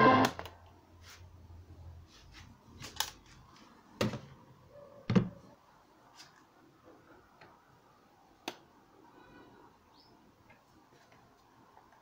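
A portable transistor radio's broadcast music cuts off abruptly as the set is switched off, followed by a handful of sharp clicks and knocks from handling, the loudest about five seconds in.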